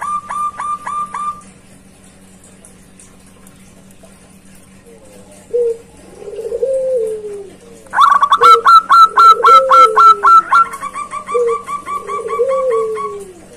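Zebra doves (perkutut) calling. A fast run of short high notes stops about a second in. From about five seconds in come three low coos falling in pitch, overlapped from about eight seconds by another rapid run of high notes.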